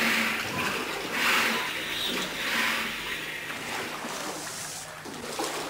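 Water sloshing and splashing in an indoor test tank, in uneven swells about once a second as the swimmer moves in the water.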